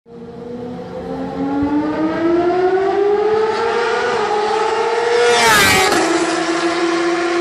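Motorcycle engine accelerating hard toward the listener with its pitch climbing steadily, then passing at speed just before six seconds in with a sudden drop in pitch, and running on at a lower steady pitch as it moves away.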